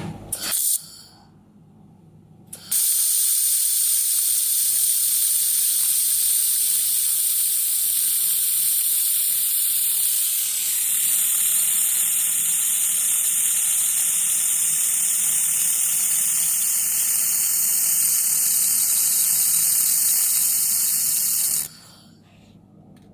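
Welding torch working on 4 mm stainless steel: a loud, steady hiss. A brief burst comes just before it, the hiss starts about three seconds in, and it cuts off suddenly near the end.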